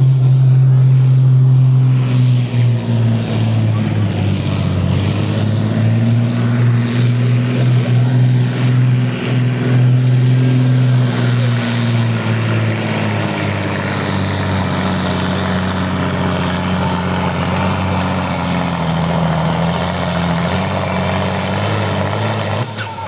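Farm tractor's diesel engine running hard at high revs under heavy pulling load, its pitch sagging gradually through the second half.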